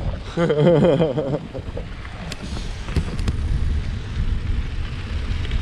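Wind buffeting the microphone while riding a bike, a steady low rumble, with a few light clicks about two to three seconds in.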